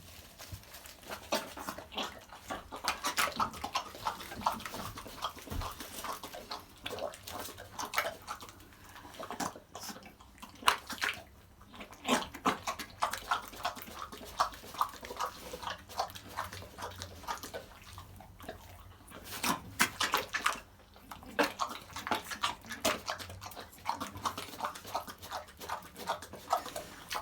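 A small pet pig eating, chewing and smacking in bouts of rapid clicks with short pauses between them.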